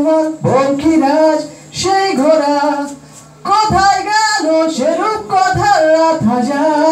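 A man singing a Bengali song solo into a handheld microphone, holding long wavering notes, with a brief pause about three seconds in.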